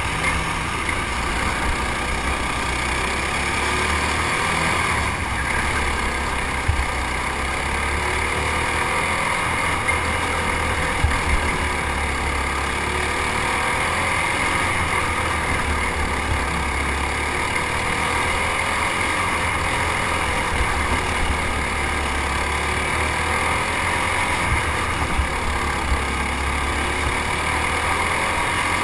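Racing kart engine running hard on a dirt oval, heard from on board, its pitch rising and falling with the throttle, with other karts' engines running close by. A few brief knocks stand out.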